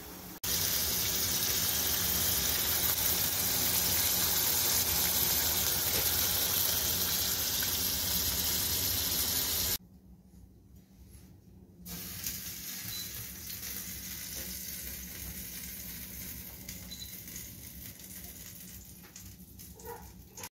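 Steady cooking hiss from a stovetop pan of fried noodles next to a saucepan of boiling water. It cuts off abruptly about ten seconds in, leaving a much quieter steady hiss.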